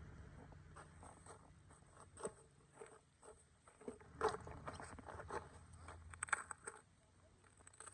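Plastic sheeting being cut away along the edges of a sandbox. It gives faint, scattered rustles and crinkles with a few sharper clicks.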